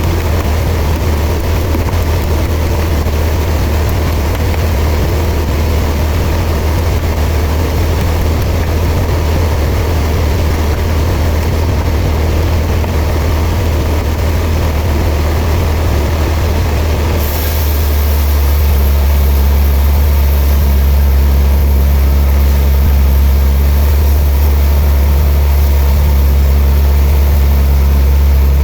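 Sawmill machinery running with a loud, steady low drone. About seventeen seconds in, the sound changes and becomes smoother and slightly louder.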